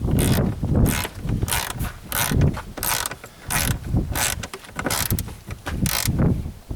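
Hand ratchet turning a screw or bolt under a car's dash: about a dozen short ratcheting strokes, repeating every half second or so.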